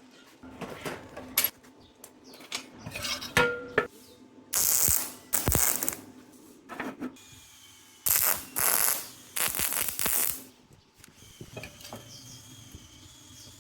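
Workshop handling sounds from metal parts and hand tools: scattered clicks and clinks, one with a brief metallic ring, and three or four short bursts of hissing noise, each under a second.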